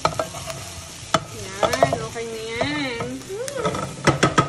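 A wooden spatula stirring and scraping crisp fried squid, onions and peppers in a nonstick frying pan, with a light sizzle. There is a wavering, voice-like hum in the middle and a quick run of sharp taps near the end.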